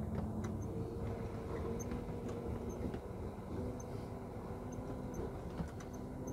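Diesel truck engine running at low speed as the truck creeps along a ferry's enclosed vehicle deck, heard from inside the cab, with a few faint clicks and rattles.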